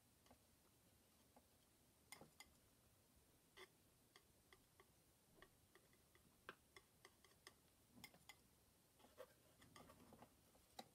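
Faint, irregular small taps and clicks of a steel palette knife dabbing oil paint onto a painting panel, with a short stretch of soft scraping near the end as the paint is spread.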